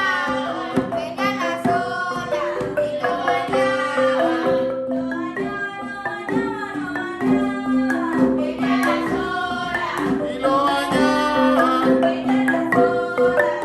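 Currulao music from the Colombian Pacific: voices singing over hand-drum and bass-drum percussion.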